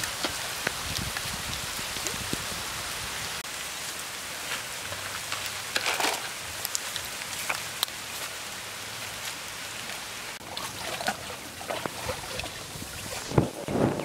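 Steady rain falling on leaves and water, with scattered sharp drips, and a couple of louder thumps near the end.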